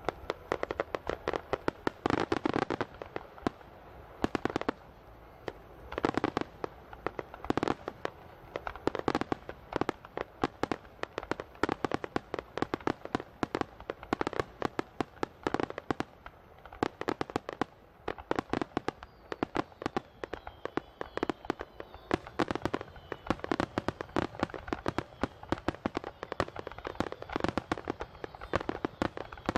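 Starmine fireworks display: a dense, unbroken barrage of aerial shell bursts, several bangs a second, with louder clusters of booms standing out now and then.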